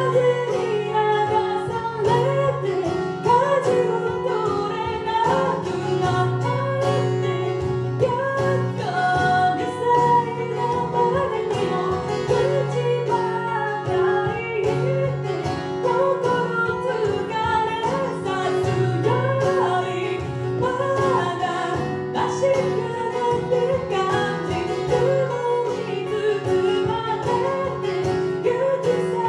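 A woman singing a song to acoustic guitar, layered over repeating parts from a Boss RC-300 loop station, with a steady bass line beneath the voice.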